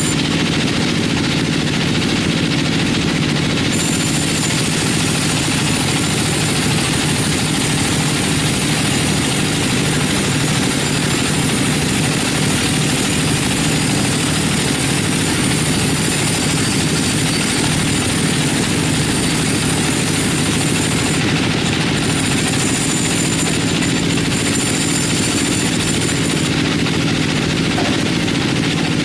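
42-inch band sawmill ripping a teak log: a loud, steady machine drone with a low hum. A thin high whine rides over it for most of the cut.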